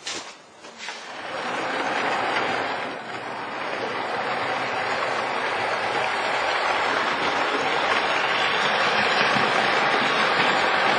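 Model train rolling along its track: a few light clicks, then from about a second in a steady rumble of metal wheels on rail.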